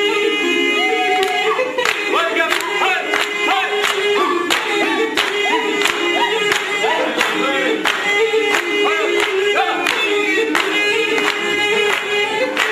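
Levantine dabke folk music: a mijwiz, a double-reed pipe, plays a steady wavering melody under singing voices. From about two seconds in, hand claps keep a sharp beat about twice a second.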